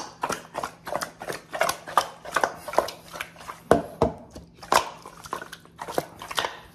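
Pieces of marinated pork rib tossed and mixed in a stainless steel bowl, the meat knocking and slapping against the metal in quick, irregular strikes, a few of them louder.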